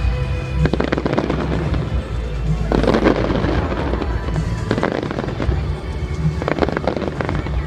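Fireworks bursting and crackling in rapid clusters, with a busy crackle around a second in, three seconds in, five seconds in and again near the end, over steady background music.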